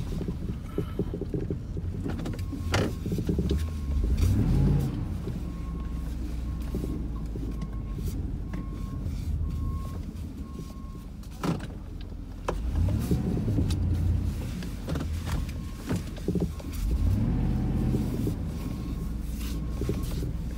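Vehicle engine rumbling steadily, heard from inside the cab, revving up and falling back three times as it moves off. A high beep repeats about once a second through the first half and again near the end.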